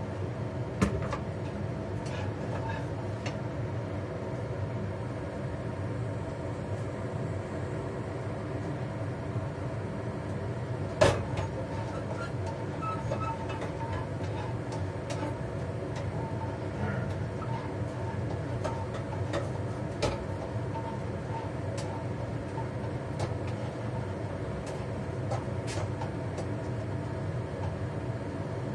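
Kitchen range hood fan running with a steady hum, with occasional sharp clicks of a metal spatula against the wok, the loudest about eleven seconds in.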